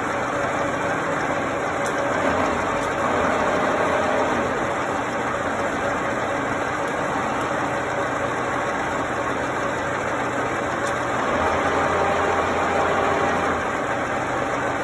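Hitachi Seiki knee-type milling machine running under power: a steady mechanical hum from its motor and gearbox, growing a little louder about two seconds in and again near the end.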